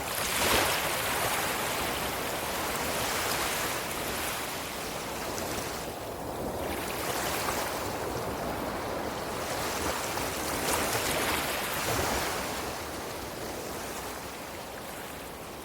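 Ocean surf: waves breaking and washing in, the rush swelling and easing every few seconds, loudest just after the start and dying down near the end.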